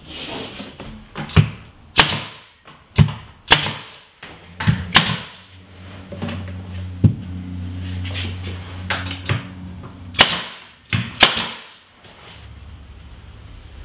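Brad nailer firing nails through the wooden chair rail into the beadboard: about a dozen sharp shots at uneven intervals, with a steady low hum under the middle stretch.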